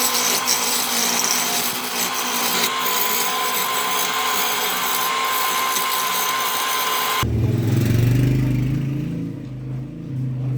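Wood lathe spinning a table-leg blank while a turning tool cuts it: a steady harsh cutting noise over a steady whine. It cuts off suddenly about seven seconds in, giving way to a lower, uneven droning sound.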